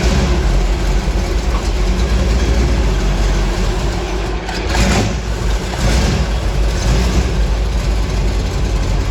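BMW M3's S54 straight-six engine running loud with no exhaust or muffler fitted, almost like open headers, with a deep steady rumble and a brief louder surge a little under five seconds in.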